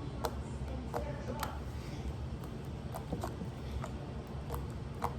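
Glitter slime being squished and worked by hand, giving a dozen or so small, irregular pops and clicks, over a low background of a television playing.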